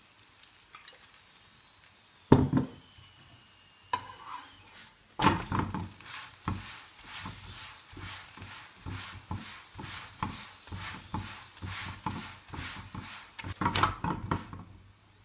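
Mooli paratha sizzling in oil on a flat non-stick tawa, while a slotted metal spatula presses and scrapes it against the pan and then turns it. A couple of sharp knocks come in the first few seconds; from about five seconds in the sizzle and spatula scrapes run on, busier near the end.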